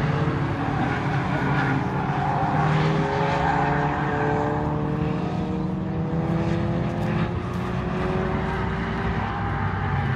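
Car engines running on a race circuit as cars pass at speed, heard from beside the track: a steady low drone with engine notes that slowly shift in pitch as the cars go by.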